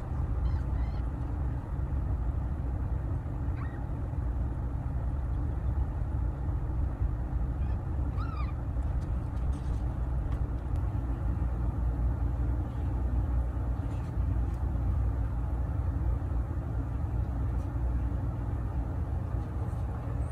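Newborn golden British Shorthair kittens crying with a few faint, thin, high mews, the clearest about eight seconds in, over a steady low rumble.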